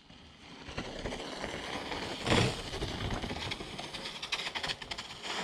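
A bicycle rolling over a dirt trail: rough tyre noise with many small rattles and knocks, rising about half a second in, with one louder bump a little over two seconds in.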